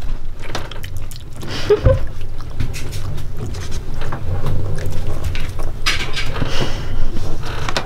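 Steady low rumble of a boat's engine heard inside the cabin, under small clicks and rustles of crab shell being handled.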